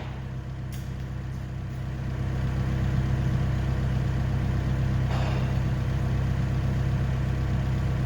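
A machine's engine running steadily at a low idle, picking up a little about two seconds in, with a faint short hiss about five seconds in.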